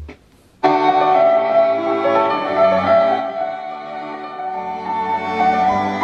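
Music played back from a cassette on a Sony TCM-450DV Cassette-Corder, starting abruptly about half a second in after a brief silence and then playing on with sustained notes.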